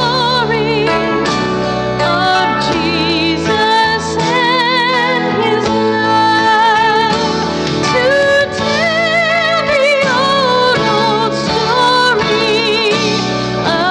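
A woman singing a slow sacred song solo, with wide vibrato on held notes, over sustained accompaniment chords.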